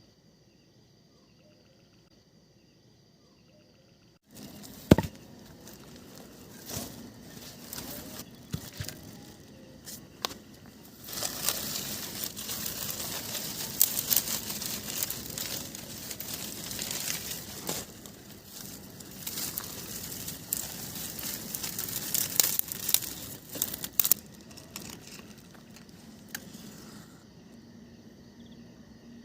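Dry leaves and twigs crackling, crinkling and snapping as a campfire is set and lit, with a sharp snap about five seconds in. The crackling thickens and grows louder, then dies down near the end. Crickets chirp faintly before it starts.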